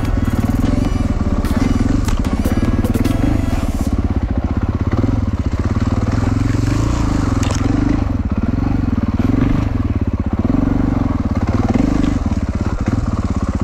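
A 450 cc four-stroke enduro motorcycle engine running under load on a rocky trail climb. The revs rise and fall over and over as the throttle is worked.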